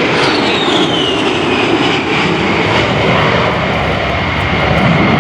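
A-10 Thunderbolt II's twin General Electric TF34 turbofan engines running loud as the jet passes, a steady roar with a high whine that falls in pitch over the first two seconds.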